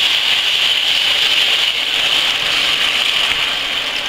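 Chopped tomatoes sizzling in hot oil in a frying pan as they are poured in from a jar and stirred with a wooden spoon: a steady sizzle that eases slightly near the end.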